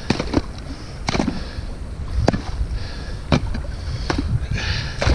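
Water sloshing and splashing, with sharp knocks and clunks about once a second, as a trapped animal is hauled out of the water.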